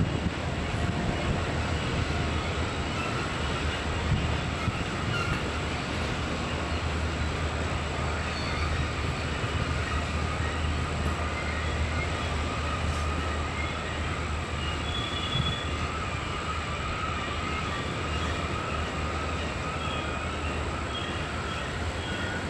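Freight train rolling steadily past on a sharp curve: a continuous rumble of car wheels on the rails under a low engine hum. A thin, wavering wheel-flange squeal runs above it, from the wheels grinding against the rail through the curve.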